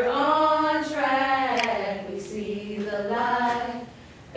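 Women singing unaccompanied in unison, in two long, drawn-out phrases, the second one lower than the first.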